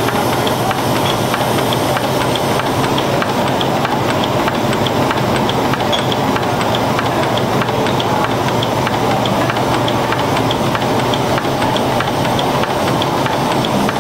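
Stationary steam engines running steadily, with a continuous hiss of escaping steam and a light, regular ticking.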